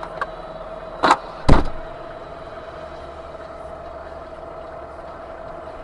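Two sharp bangs about half a second apart, the second louder and deeper, over the steady hum of a car in motion or idling.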